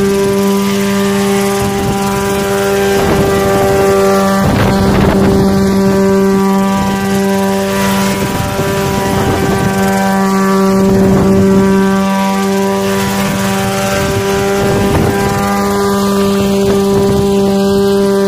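Single-seat coaxial helicopter flying at very low altitude: a steady engine and rotor drone that holds one pitch, with a rushing of air that swells a few times.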